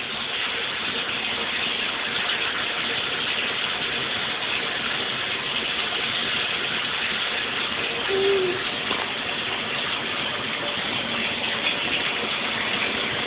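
A steady, even rushing noise, with a short pitched sound about eight seconds in.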